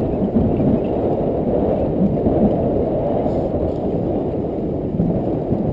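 Wind buffeting the camera microphone: a steady low rumble.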